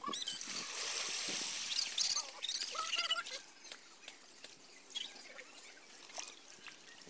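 Shallow muddy water splashing and trickling as hands stir it and pull at a brush pile, with dry twigs rustling. It is loudest and most continuous in the first two seconds, then dies down to scattered small splashes and clicks.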